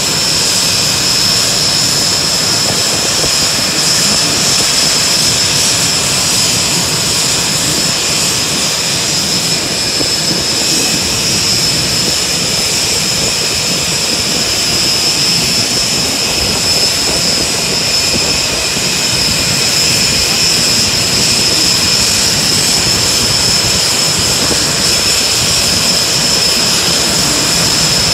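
Aircraft turbine engine running steadily, a loud even rush with a constant high-pitched whine over it.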